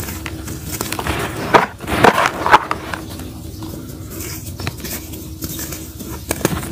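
Dry mud dirt crunching and crumbling as hands squeeze the lumps to powder. A few loud sharp crunches come between about one and a half and two and a half seconds in, then softer gritty rustling of the loose dirt.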